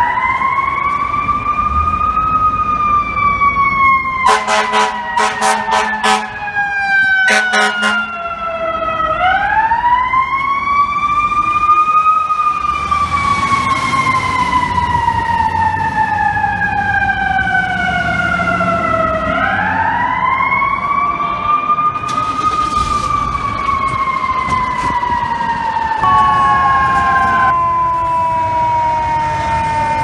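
FDNY fire engine's mechanical siren winding up quickly and slowly winding down, three times over. A long blast and then a short blast of the air horn sound about four and seven seconds in. Near the end a second, steadier siren tone comes in.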